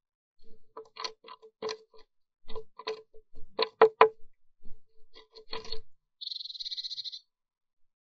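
Blue tit's claws scrabbling and tapping on the wooden nest box at the entrance hole: a run of sharp knocks and scratches, loudest about four seconds in. Just after six seconds comes about a second of a rapid, high trill from a bird.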